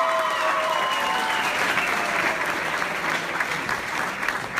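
Audience clapping, with long high-pitched cheers that fade out about a second in.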